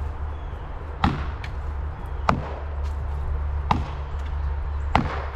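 Four axe strikes on wood, about one every second and a quarter.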